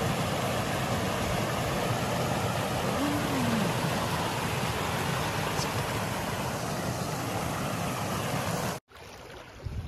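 Water rushing over a small rock cascade into a pool, a steady rush that cuts off suddenly about nine seconds in.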